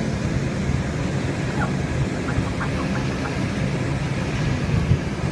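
Inside a moving Seattle Link light rail car: steady low rumble of the train running, with a constant motor hum. A few faint short high tones sound about two to three seconds in.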